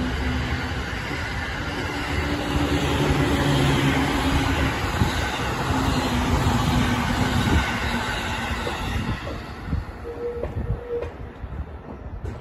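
Tobu 50000-series cars rolling slowly past on the rails as they are hauled: a steady wheel-on-rail rumble with low hums that fades away about three-quarters of the way through.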